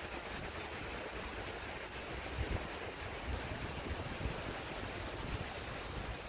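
Wind blowing over the microphone with the wash of surf behind it, a steady noise with gusty low rumbling.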